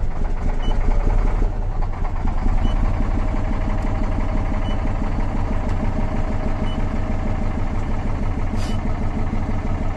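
Liebherr LTM 1055-3.1 mobile crane's diesel engine just after starting. It runs loudest for the first second or so, then settles into a steady idle of about 700–750 rpm.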